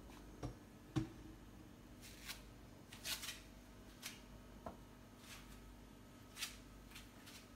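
Faint handling sounds: two soft knocks in the first second, the second the loudest, then short scattered rustles and scrapes.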